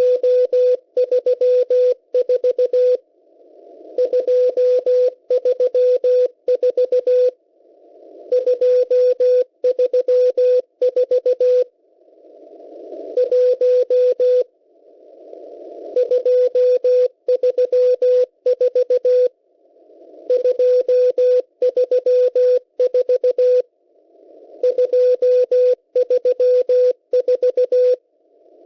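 Morse code from the M12 numbers station received on shortwave: a single steady beep keyed in rapid dots and dashes sending groups of numbers. It comes in bursts of about three seconds with pauses of about a second, and band hiss swells up in each pause.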